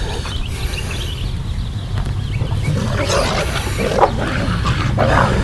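Cane corsos growling as they roughhouse, over a steady low rumble.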